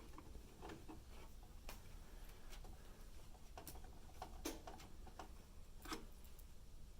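Faint, irregular clicks and light metallic taps of a screwdriver driving motherboard screws into brass standoffs in a PC case. The two loudest clicks come about four and a half and six seconds in, over a low steady hum.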